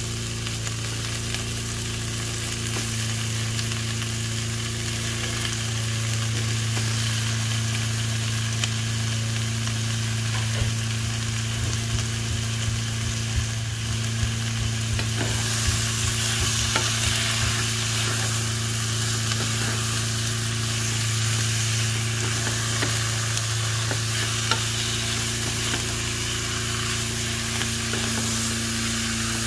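Sliced pork sizzling as it fries in a pot with sautéed onion and garlic, with a wooden spoon stirring it near the end. A steady low hum runs underneath.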